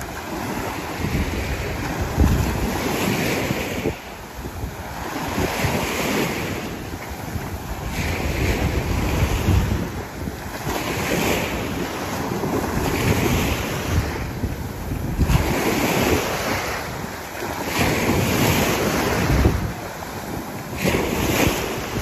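Small surf breaking and washing up the beach, the rush of water swelling and falling back in repeated waves a few seconds apart. Wind buffets the microphone with low rumbling gusts.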